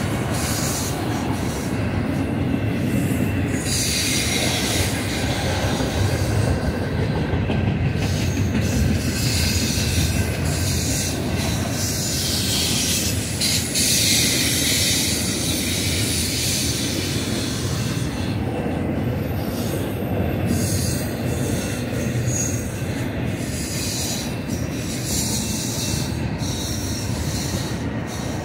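Double-stack intermodal well cars rolling past on a curve, a steady rumble of steel wheels on rail, with stretches of high-pitched wheel squeal a few seconds in and again around the middle.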